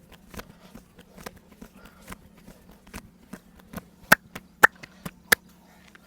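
Hands working during a massage: a run of quick, irregular light taps and slaps, then three much louder sharp snaps about four to five and a half seconds in.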